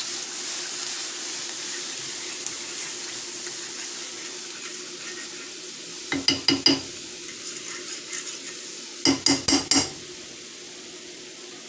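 Flour-and-oil pan gravy sizzling and bubbling in a skillet as it thickens after water has been added. A fork clicks against the pan in two quick runs of stirring, about six seconds in and again about nine seconds in, and the sizzle dies down near the end.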